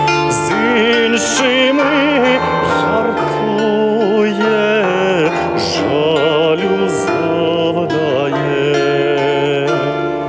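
A bandura's plucked strings accompanying a singing voice that holds long notes with vibrato.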